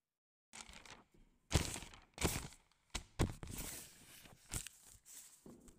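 Handling noise at a wooden exam desk: paper rustling and pens on sheets, with several sharp knocks and thuds, starting about half a second in.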